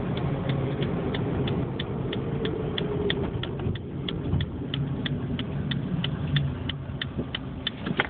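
2005 Dodge Neon's turn signal ticking steadily, about three ticks a second, inside the cabin over the low steady drone of the engine and road.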